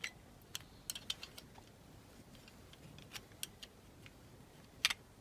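Small sharp clicks and taps of a clear plastic model-car window piece being handled and pressed into place in a die-cast body, scattered irregularly, with the loudest click near the end.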